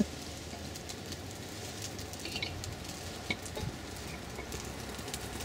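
Newly lit kindling fire of split wood just catching, a soft steady hiss with a few small scattered crackles.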